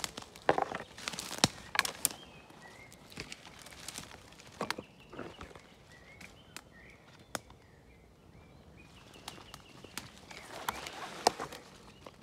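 Footsteps and rustling through wet forest undergrowth: leaves, stems and twigs brushing and crackling, with a few sharp clicks. The rustling is heaviest near the start and again near the end. A bird calls faintly in the quieter middle.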